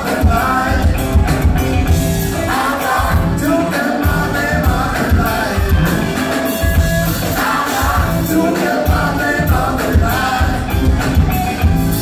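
Live funk band playing an instrumental groove: drums, electric bass, keyboard and two electric guitars, with a strong, regularly pulsing bass and kick.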